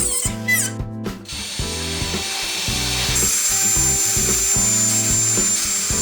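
A power tool working wood, with a steady hiss and a thin high whine that sets in about halfway through, over background music with a repeating low melody.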